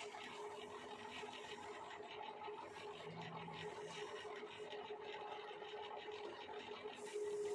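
Wood lathe running with a steady motor whine over a continuous scraping hiss, as a tool works the spinning wood.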